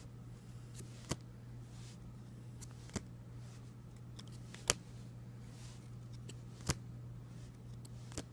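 Trading cards being flipped through one at a time, a light click or snap of card stock about every two seconds, five in all, over a steady low electrical hum.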